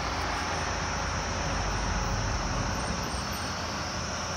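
Cargo truck's engine running as it drives slowly along a winding road below, a steady low rumble under an even hiss.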